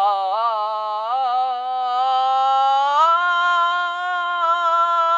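One voice singing a long drawn-out note, wavering and sliding upward at first, then stepping up to a higher pitch about three seconds in and holding it steady.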